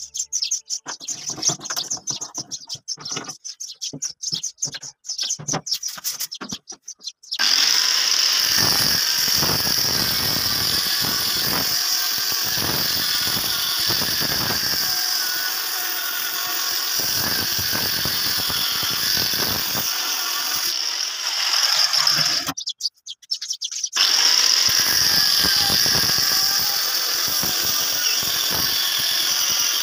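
Angle grinder with a thin cut-off disc cutting into a steel pipe held in a vise: a loud, steady high whine with grinding, starting about seven seconds in, stopping for a moment about two-thirds of the way through, then running again. Before it starts, irregular clicks and scrapes of metal being handled.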